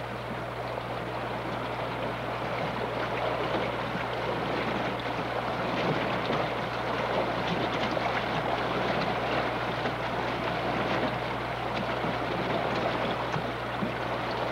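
Steady rain falling on a river: an even hiss of fine patter that grows slightly louder after the first few seconds.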